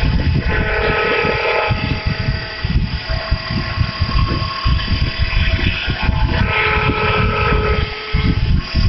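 A motor-driven machine running steadily with an uneven low rumble and a steady hum. A higher whine comes in twice, about a second in and again around seven seconds.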